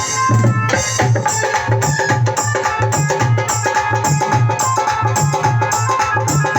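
Dhol drumming in a steady rhythm: deep bass strokes alternating with sharp treble strokes, with a pitched melodic instrument playing along.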